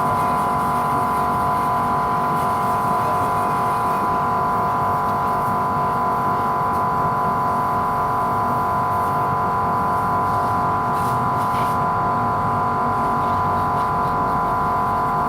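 A machine motor running steadily: a constant high hum over a low rumble, with no change in pitch or level.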